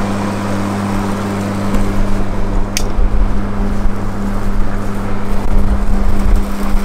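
EGO LM1903E-SP 56V battery self-propelled lawn mower running with a steady hum while it is pushed across grass. A low rumble joins from about two seconds in, and there is one sharp click near the three-second mark.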